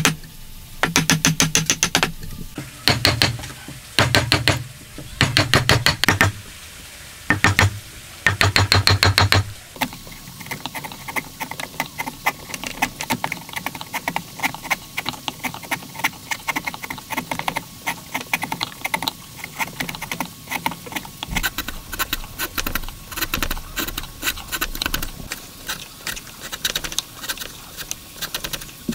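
Mallet driving a wood chisel into a block of wood, in several quick runs of rapid strikes over the first ten seconds. Then the chisel is pared through the wood by hand: a long run of light, fast ticks and scrapes.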